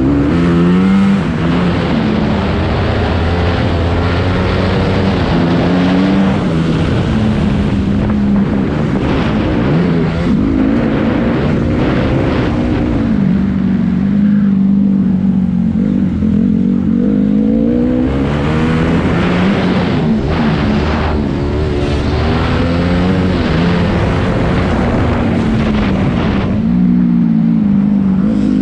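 Honda CRF250R four-stroke single-cylinder motocross engine revving hard, its note climbing and dropping over and over as the throttle opens and closes.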